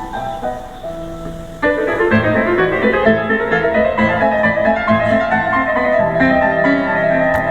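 Piano music played back as a test through a KONDO Audio Note two-way loudspeaker whose woofers have just been repaired for a buzzing, chirping noise. It gets suddenly louder about a second and a half in.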